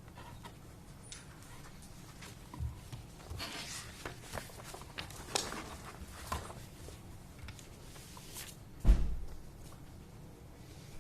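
Quiet room tone with scattered light rustles and small clicks, and one loud dull thump about nine seconds in.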